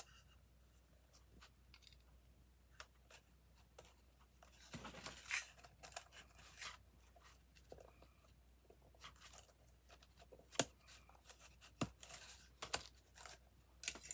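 Faint rustling and scraping with a few sharp clicks: craft materials, including a strand of plastic pearl beads, being handled and pressed onto a small wooden box.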